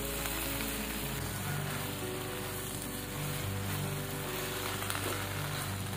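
Chopped green mustard greens sizzling in a hot wok as they are tossed with a spatula, under background music with low, held notes.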